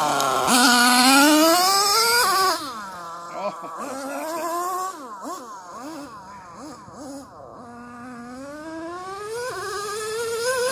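Nitro RC car's small two-stroke glow-fuel engine revving as the car is driven, a high buzz that climbs in pitch close by at first, then drops and gets quieter about two and a half seconds in. It blips up and down, fainter, while the car runs farther off, and rises and gets louder again near the end as it comes back.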